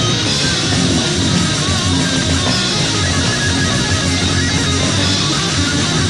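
Heavy metal band playing on a lo-fi demo tape recording: electric guitars, bass guitar and drums.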